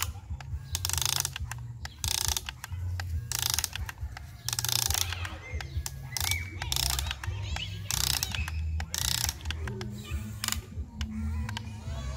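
Huina radio-controlled toy excavator's electric motors and gearboxes whirring and grinding in repeated short bursts as the boom, arm and bucket move to dig sand.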